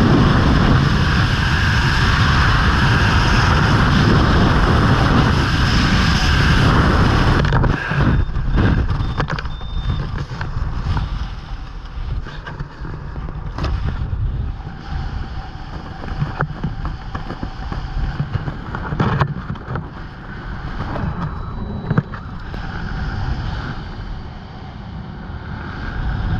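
Loud, steady wind noise on a skydiver's helmet-camera microphone in freefall, dropping sharply about seven and a half seconds in as the parachute opens. After that, a quieter, gusting wind rush under the canopy with scattered flaps and clicks of fabric and lines.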